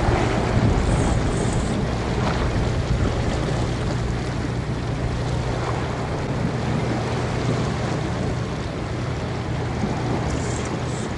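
Steady rush of wind and sea against the microphone, with a constant low rumble underneath.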